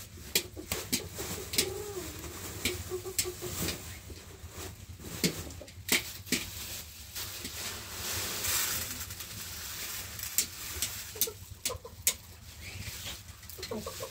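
Scattered sharp clicks and knocks, with a bird calling in a wavering low voice about two to three seconds in.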